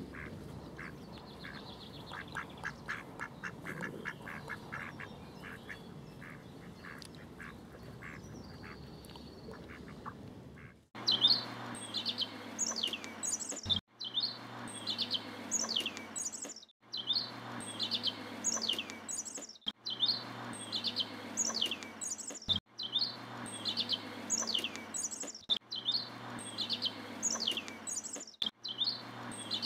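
A mallard calling in a quick run of short calls for about the first ten seconds. After a sudden cut come small songbirds chirping: high, falling chirps, the same few-second stretch repeating with a brief break about every three seconds.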